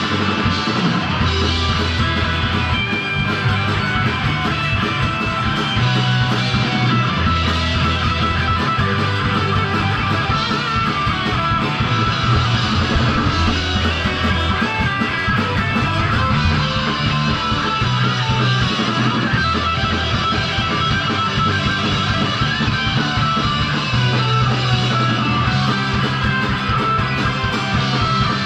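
Punk rock band playing live and loud: distorted electric guitars, bass guitar and drums, with the bass line moving through changing notes.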